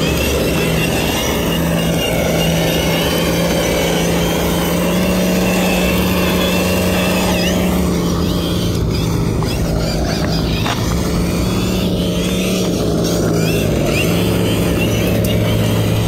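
Traxxas TRX-4 RC truck's Hobbywing Fusion Pro brushless motor and drivetrain whining, the pitch rising and falling with throttle as the truck spins on loose dirt.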